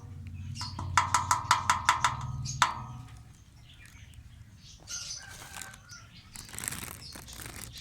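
Pet parrots chirping in a fast run of short, repeated calls, then a few scattered calls and a brief rustle of wings near the end.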